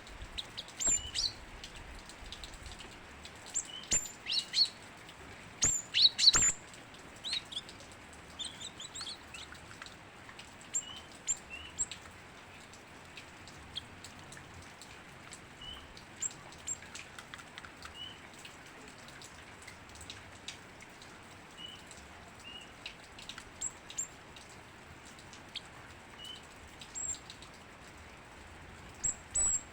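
Cinereous tit (gelatik batu) singing actively: short, sharp, high chirps and call notes, coming thick and fast in the first eight seconds, then spaced out, over a steady faint hiss.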